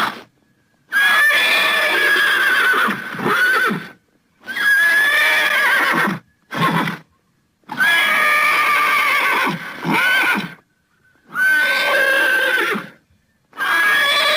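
Horse whinnying: several separate high-pitched whinnies, each one to three seconds long, parted by short silences.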